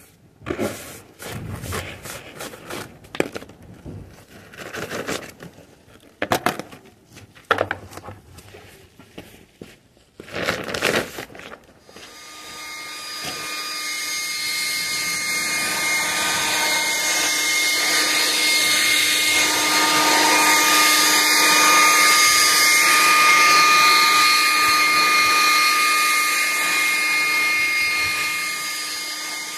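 A hand brush and dustpan scrape and scratch kiln-dried sand over block paving in short, irregular strokes. About twelve seconds in, a leaf blower starts and builds to a loud, steady whining rush as it blows loose jointing sand off the paving.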